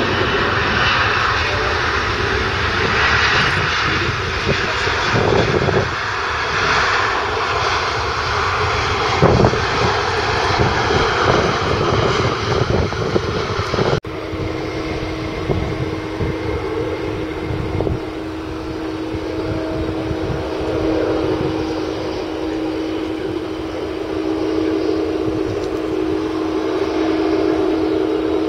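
Boeing 747-400 jumbo jet's four jet engines running as the airliner rolls out along the runway after landing: a steady loud jet rush. About halfway through, the sound changes at a cut, and a steady engine whine joins the rush.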